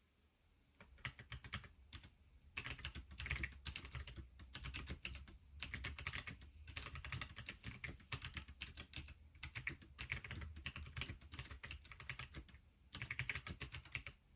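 Fast typing on a hand-built Pinky4 split mechanical keyboard: rapid key clicks in runs of a few seconds, with brief pauses between them, starting about a second in and stopping just before the end.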